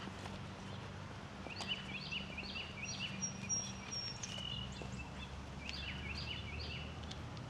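A songbird singing: a run of about six quick repeated notes, a pause, then a shorter run of the same notes, over a steady low hum.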